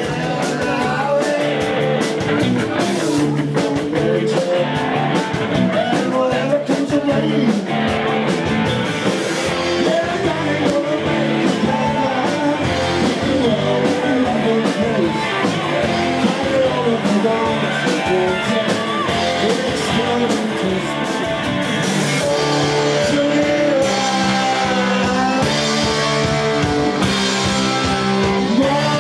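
Live rock band playing: a man singing lead over electric guitar, bass guitar and drums.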